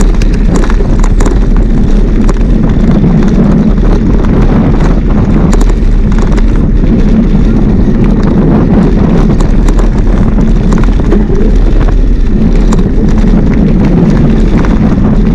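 Heavy wind buffeting on a moving action camera's microphone, a steady loud rumble with scattered clicks and rattles.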